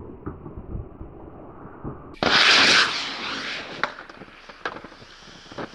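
Short sharp hiss from the ejection seat's solid-fuel model rocket motors burning out, then scattered crackles and ticks as they smoulder.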